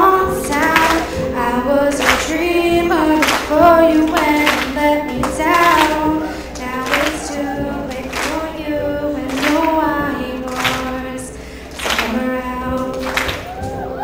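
A woman singing a slow ballad solo into a microphone over live instrumental accompaniment, holding long notes between phrases.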